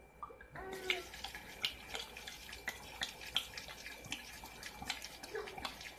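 Tequila pouring in a steady stream from an upturned glass bottle into a plastic cooler, splashing onto sliced oranges, with small drips and splashes.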